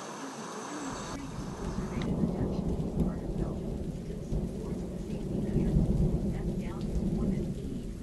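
Surf washing in fades out in the first two seconds and gives way to a low, uneven rumble of thunder with rain.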